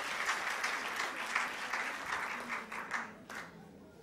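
Audience applauding, the clapping fading out about three seconds in.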